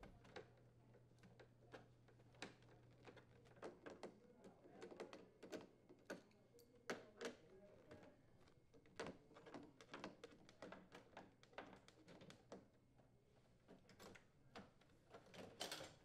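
Faint, scattered clicks and small metallic taps of a 5/16-inch nut driver turning out the steel door hinge mounting screws.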